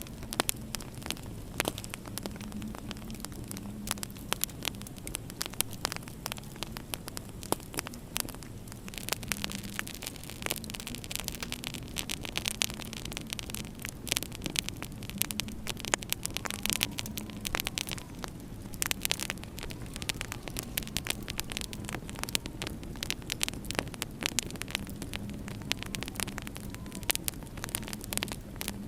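Wood fire in a fireplace crackling, with frequent irregular sharp pops and snaps over a steady low hum.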